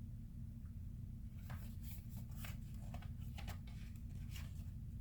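Packaging being handled and unwrapped: a run of short scratchy rustles and crinkles starting about a second and a half in, over a steady low hum.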